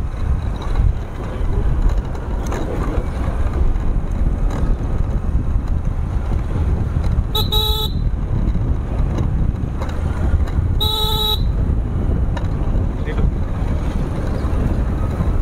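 Motorcycle riding along a road, with steady engine and wind rumble on the mounted microphone. Two short horn beeps cut through, about three and a half seconds apart.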